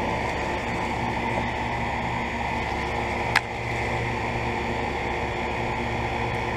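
Two central air conditioner condensers, a 2001 York 2.5-ton and a 2007 Guardian 4-ton, running together: a steady compressor hum under fan noise. A single sharp click about halfway through.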